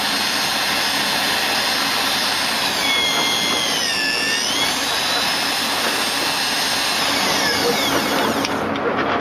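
Electric facing tool of a butt-fusion pipe welding machine running, shaving the ends of plastic pipe to remove the oxidized surface layer and make the faces flat. Its steady whine dips in pitch about three seconds in and recovers, then falls away near the end as it winds down and cuts off.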